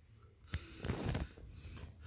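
A sharp click, then a short rubbing, scuffing noise from hands working a worn rubber sandal sole during a glue repair.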